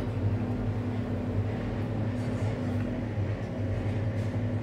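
Steady low machine hum with a few level tones held unchanged throughout.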